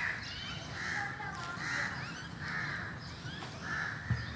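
Birds calling outdoors: a harsh, rasping call repeated about once a second, with fainter high chirps from other small birds. A single low thump comes near the end.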